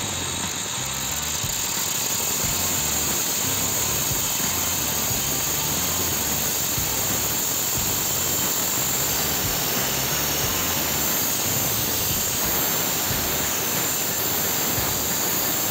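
Angle grinder's abrasive cut-off disc cutting steadily through a steel pipe: a loud, high-pitched whine over a dense grinding hiss.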